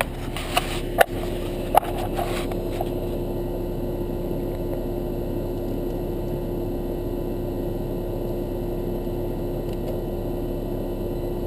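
Residential air-conditioning condenser unit running steadily, its compressor and condenser fan making a constant hum with one steady tone, back in service after its failed capacitor was replaced. A few sharp clicks of handling come in the first couple of seconds.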